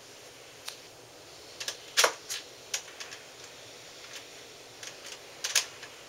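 Screwdriver being picked up and used to tighten the handle bolt of an upright vacuum cleaner: scattered sharp clicks and knocks of metal and hard plastic, irregular, with the loudest knock about two seconds in and another cluster near the end.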